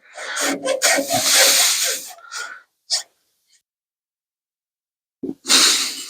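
Forceful, breathy exhalations close to the microphone from someone straining at a stubborn job: a long burst of blowing breath over the first two seconds or so, then another shorter one near the end.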